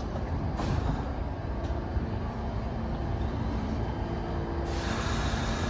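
A New York City Subway train standing at the platform, its equipment running with a steady low rumble and hum. About five seconds in, a steady hiss of air starts abruptly and keeps going.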